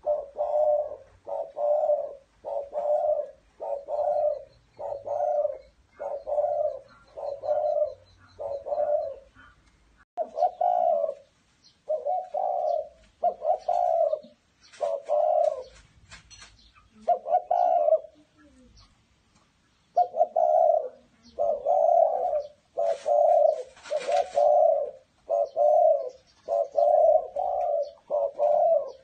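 Caged dove cooing: a long run of short, evenly spaced coos, about three every two seconds, broken by a few short pauses. A couple of brief rustling noises come through in the middle and again later.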